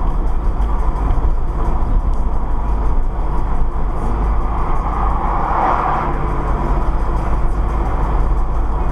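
Steady road noise inside a moving car, picked up by a dashcam microphone: a deep rumble of tyres and engine at speed. About five to six seconds in, a rushing swell as an overtaking BMW passes close alongside.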